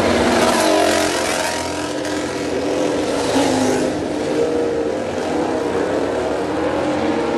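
MotoGP racing motorcycle engines running and revving, their pitch rising and falling.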